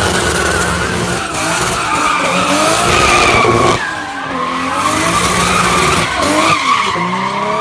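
Car tyres squealing through a drift or burnout, a wavering high squeal over the engine revving up and down. The sound breaks off abruptly about halfway and then resumes.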